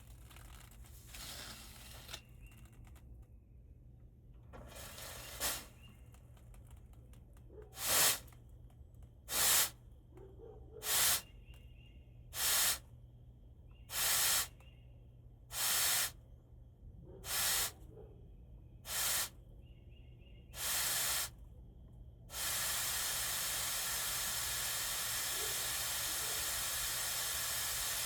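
Pressurized gas hissing out in about nine short bursts, roughly one every second and a half, then a steady continuous hiss over the last few seconds.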